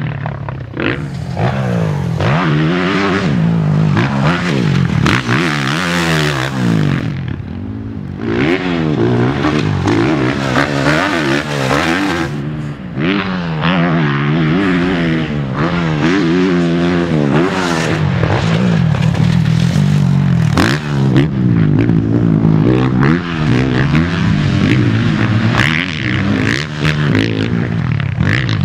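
Suzuki four-stroke motocross bike's engine ridden hard, revving up and dropping back over and over, its pitch climbing with each throttle roll-on and falling at each shift or chop of the throttle.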